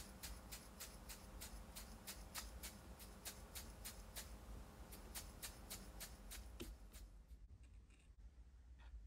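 Tiny miniature salt shaker being shaken over a sandwich: faint, even ticks about three to four a second, stopping about seven seconds in.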